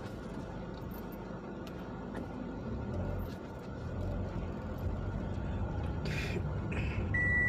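Steady low engine and road rumble of a car heard from inside the cabin as it drives slowly. Near the end comes a short hiss, then one steady high-pitched beep.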